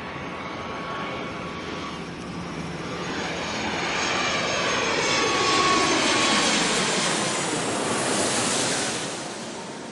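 An airplane passing low overhead on its landing approach. The engine noise and whine build to their loudest about six seconds in, the whine's pitch drops as it goes by, and the sound fades near the end.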